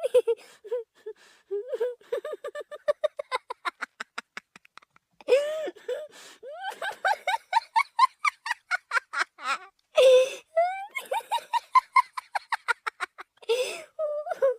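Cartoon laugh sound effect made from a pitch-altered stock laugh: runs of quick staccato giggling pulses, some climbing in pitch, broken by short gasping breaths between runs.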